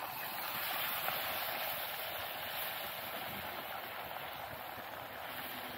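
Beaten eggs sizzling in hot oil as they are poured into a frying pan on a very hot gas camping stove: a steady hiss that eases off slightly.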